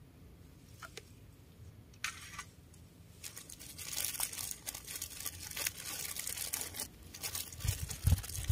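Crinkling, crackling rustle of something being handled close by, thick for a few seconds from about three seconds in, with a couple of dull low thumps near the end.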